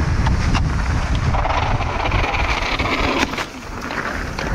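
Wind buffeting the microphone of a helmet or bike-mounted camera on a mountain bike riding fast downhill, with tyre hiss and sharp knocks and rattles as the bike goes over rough ground.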